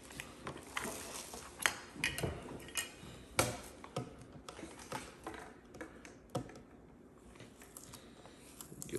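Handling noises from unpacking a stainless-steel air fryer: scattered clicks and light knocks as the appliance is shifted about on a wooden board, then quieter handling as the packaging tape is peeled off its front.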